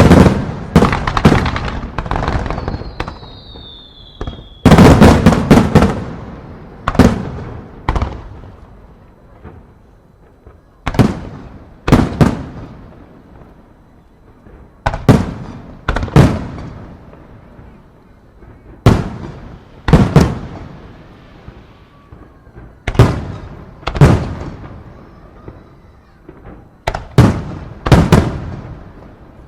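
Aerial fireworks shells bursting: rapid clusters of bangs in the first few seconds, then single loud booms about every one to two seconds, each trailing off in an echo. A high whistle falling in pitch sounds about two seconds in.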